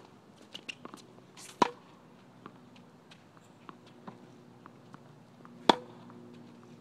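Two tennis forehands: the racket strings strike the ball twice, each a sharp pop with a short ring, about four seconds apart. Faint taps and ticks from the court sound in between.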